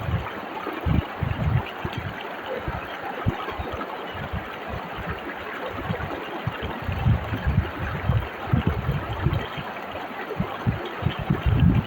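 Fast-flowing whitewater river rushing over rocks: a steady hiss of water with irregular low thuds and rumbles throughout.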